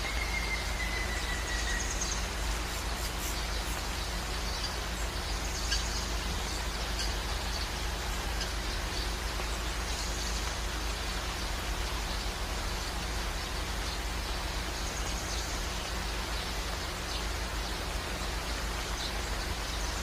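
Steady rushing outdoor noise with a low rumble underneath, and brief faint bird chirps now and then, one a short falling whistle near the start.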